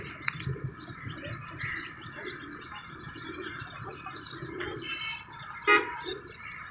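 A large flock of pigeons cooing, with many short bird chirps over them. A brief, louder pitched sound stands out about three-quarters of the way through.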